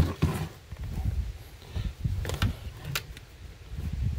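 Small screwdriver prying at the edge of the glass in a Jeep ZJ side-mirror housing: a knock at the start, then a few sharp clicks and taps of metal on glass and plastic, over low bumping from the housing being handled.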